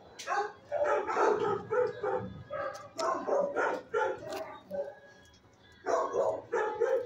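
Dogs in shelter kennels barking in quick, repeated volleys, about three or four barks a second, pausing briefly about five seconds in before starting again.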